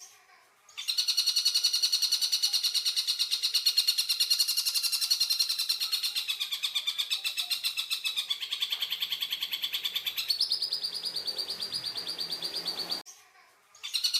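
Stork-billed kingfisher (tengkek buto) giving a long, fast rattling call of rapidly repeated harsh notes, dipping in pitch midway and stepping up again near the end before breaking off.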